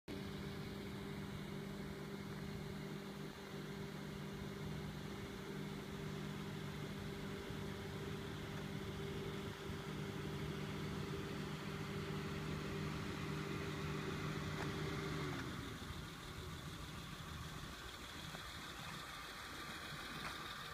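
A steady motor hum that winds down in pitch and stops about fifteen seconds in, with a steady outdoor background hiss throughout.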